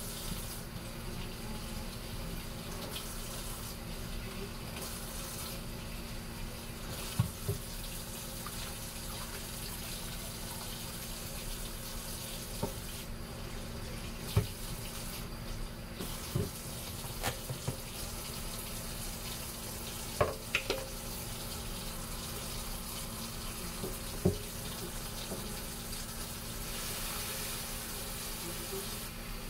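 Kitchen faucet running steadily into the sink while potatoes are rinsed and scrubbed under the stream, with a few short knocks here and there.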